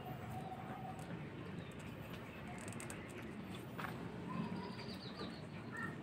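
Faint outdoor background with a few brief bird calls over a steady low hum.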